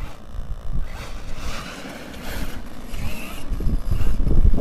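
Arrma Nero RC monster truck's brushless electric motor whining as it drives over gravel, with wind buffeting the microphone, the wind rumble growing loudest near the end.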